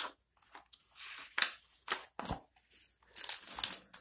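A page of a large hardcover picture book being turned by hand: several papery swishes and rustles, with a soft thump about two seconds in.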